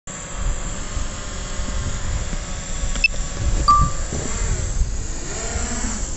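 DJI Mavic Pro Platinum drone hovering with a steady propeller hum over a low, fluctuating rumble. There is a click about three seconds in and a short beep just after. The propeller pitch then wavers up and down as the drone climbs.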